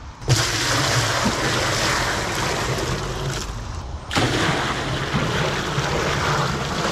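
Water pouring from a plastic bucket into a galvanized metal tub in two long pours, broken by a short pause about three and a half seconds in.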